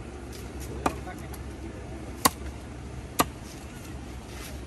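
Large curved knife chopping rohu fish into pieces on a wooden tree-stump block: three sharp chops at uneven intervals, with a few fainter taps between.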